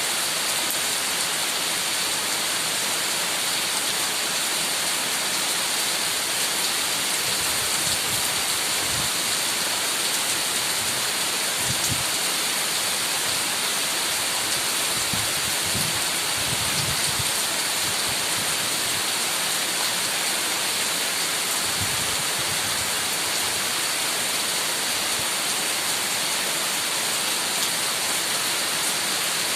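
Heavy rain falling steadily, a dense even hiss, with a few soft low thumps in the middle.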